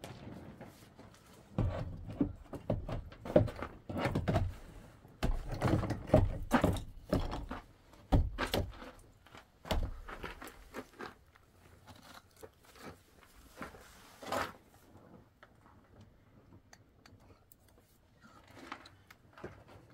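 Irregular knocks, thuds and crunching handling noises, dense and heavy for several seconds, then thinning to a few lighter clicks.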